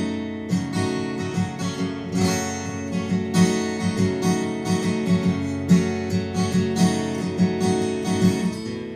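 Acoustic guitar picked and strummed in a steady rhythm: an instrumental break between verses of a live folk song, with no singing.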